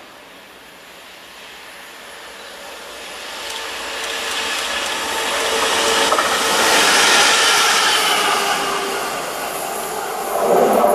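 A British Rail Class 66 diesel locomotive, with its EMD two-stroke V12 engine, approaches and passes. The engine and wheel noise grows louder to a peak about seven seconds in over a steady engine tone, then comes a brief loud rush of noise near the end as it goes by.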